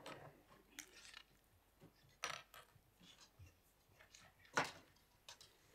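A few scattered small knocks and clatters with light rustling from people moving at a meeting table and chairs, the loudest knock about four and a half seconds in.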